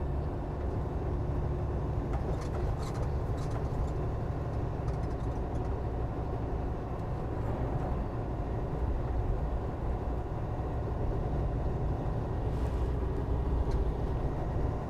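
Semi truck's diesel engine and road noise droning steadily inside the cab.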